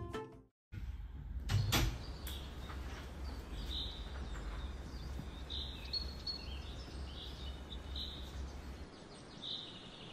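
Quiet room ambience with a low steady hum and birds chirping outside, short repeated chirps throughout. A short knock sounds about two seconds in, and the hum stops near the end.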